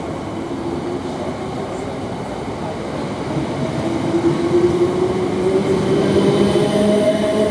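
Class 455 electric multiple unit running, its traction motors whining and rising in pitch as the train picks up speed over rail rumble. It grows louder from about halfway through.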